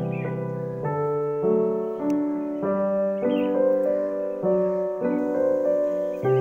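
Background music: a gentle piano or keyboard tune moving through a new chord or note about every second over held bass notes.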